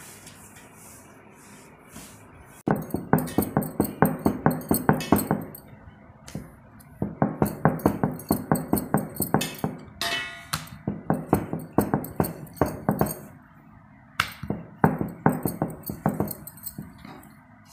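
Wooden rolling pin rolling out stiff dough on a round board, knocking against the board several times a second in runs of two to three seconds, starting a few seconds in. A brief high whine about ten seconds in.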